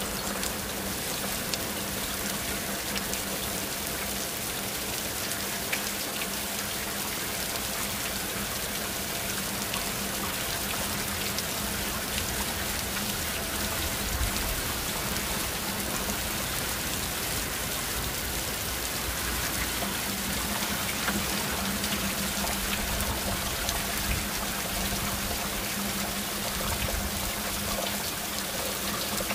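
Heavy downpour: a steady, even hiss of rain falling, with scattered close drops ticking. A faint steady low hum runs underneath.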